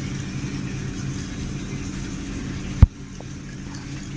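Steady hum of a hydraulic bench's electric pump running, with one sharp knock a little under three seconds in.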